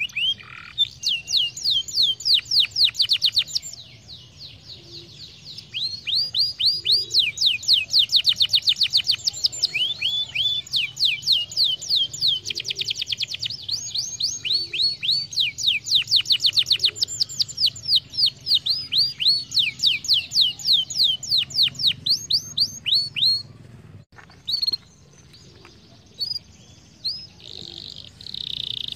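Domestic canary singing: long, rapid trills of quick falling notes, breaking off briefly about four seconds in and thinning to scattered notes near the end.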